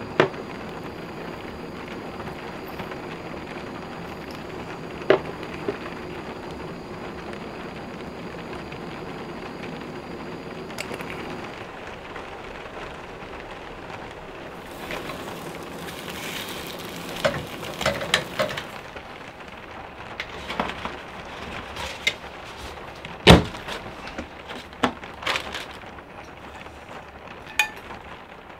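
Scrambled eggs cooking in a metal pan on a camp stove, a steady hiss. From about halfway on, a spatula scrapes and clinks against the pan in a run of sharp clicks and knocks as the eggs are scraped out, the loudest a single knock near the end.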